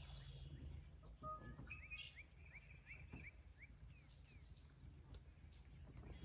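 A bird chirping faintly: a run of short repeated chirps, about three a second, through the middle, over a low steady hum.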